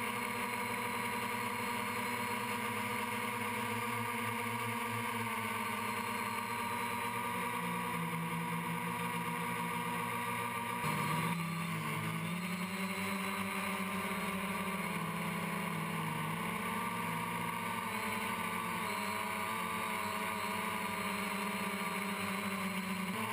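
Multirotor quadcopter's electric motors and propellers whining steadily, heard from the camera on board. Its several tones shift in pitch as the throttle changes, most sharply about halfway through.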